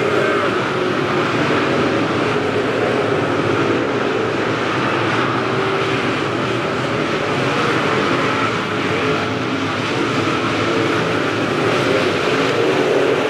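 Dirt late model race cars' V8 engines running at racing speed, a loud, steady engine noise with no breaks.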